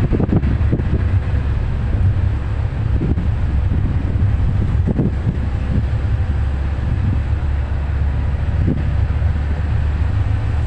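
Steady low rumble of a minibus driving along a road, heard from inside the passenger cabin, with a few short knocks and rattles as it goes.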